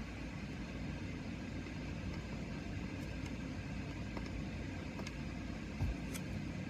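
A steady low hum of background noise with a few faint clicks, including one small knock about six seconds in.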